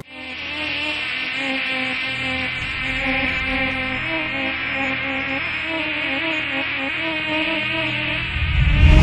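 Sound effect of a swarm of flies buzzing, a steady droning hum with wavering pitch. Near the end a loud rushing swell rises over it.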